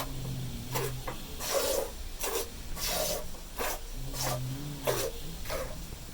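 Hand milking: rhythmic jets of milk squirting into a pail, a short rasping hiss about every 0.7 seconds. Under it, the dozing cow gives two low, drawn-out snores, one at the start and one about four seconds in.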